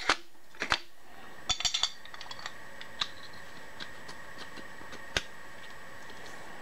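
Metal tools and parts being handled, with several sharp clinks and clicks in the first two seconds, then only a few faint ticks. A faint steady high-pitched hum runs underneath.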